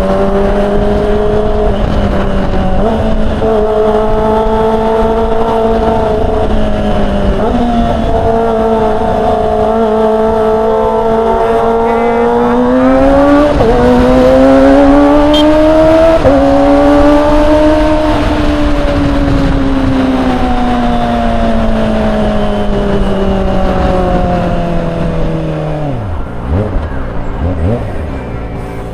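Kawasaki Ninja ZX-25R inline-four running through a Yakuza R7 aftermarket exhaust, heard onboard while riding: the engine note climbs with a couple of quick gear changes around the middle, where it is loudest, then falls away steadily as the bike slows near the end.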